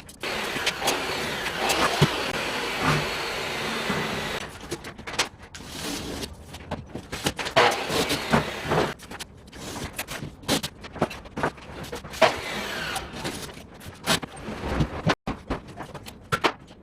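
A power tool runs with a steady whir for about four seconds, then a string of sharp knocks and clicks follows, with another short run of noise about halfway through.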